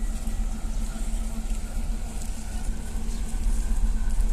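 Diesel shunting locomotive running as it approaches slowly: a steady low engine drone with a constant hum, getting louder about three seconds in.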